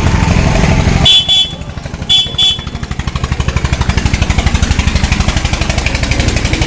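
Hero Honda Splendor's single-cylinder four-stroke engine running, freshly reassembled; it drops back sharply about a second in and then settles into a steady idle with even firing pulses. A vehicle horn toots twice, in short double beeps, about one and two seconds in.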